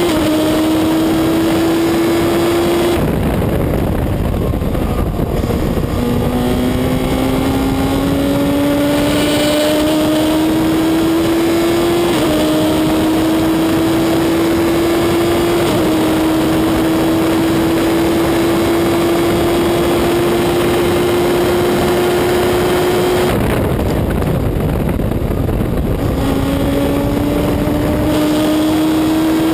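Onboard sound of a Reynard Inverter race car's motorcycle-derived engine at racing speed, its pitch climbing steadily with short drops at each upshift. Twice, about three seconds in and again past twenty seconds, the engine note breaks off into rushing noise as the car slows for a corner, then returns lower and climbs again under acceleration.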